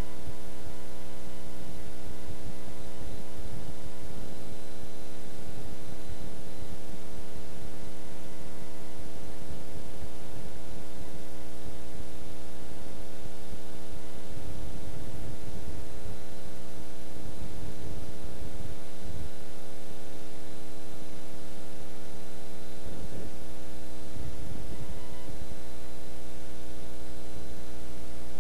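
Steady electrical mains hum, a stack of unchanging tones with a hiss over it, the only sound on the soundtrack.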